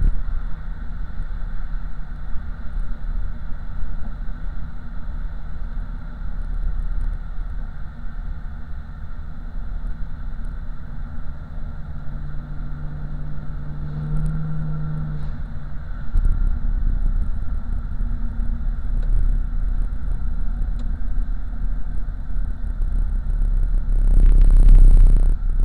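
LS-swapped car's 5.3-litre V8 running while cruising, heard from inside the cabin as a steady low exhaust rumble over road noise, getting louder about two-thirds of the way in. Near the end comes a brief loud rush of noise, the loudest moment.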